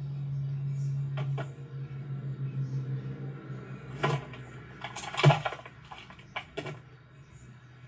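A low steady hum that fades away within the first two seconds, followed by a series of short knocks and clatters, the loudest cluster about five seconds in.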